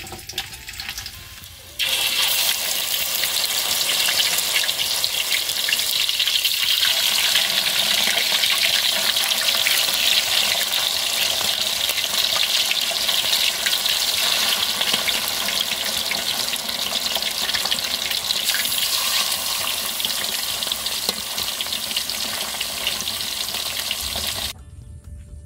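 Whole freshwater fish deep-frying in hot oil in a wok: a loud, steady sizzle that starts suddenly about two seconds in and cuts off near the end.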